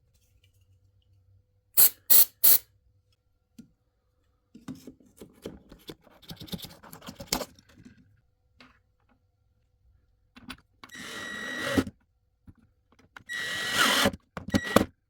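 A few sharp clicks and some scratchy handling, then a cordless drill-driver running in two short bursts, the first growing louder under load. This fits driving a screw into a stripped hole that has been repaired with cotton and glue.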